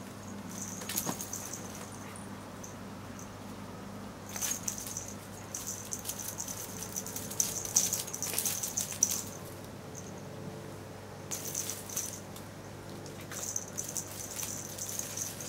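A cat-toy lure on a string rattling and rustling in short irregular bursts as a cat swats and grabs at it, with the busiest stretch in the middle.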